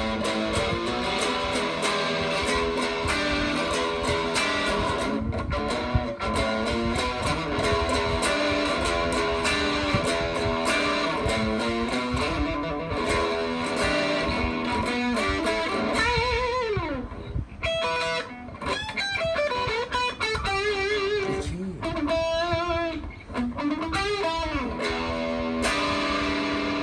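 Fernandes MG electric guitar played through a Fender amplifier: dense chord playing for the first half, then single-note lead lines with string bends and vibrato.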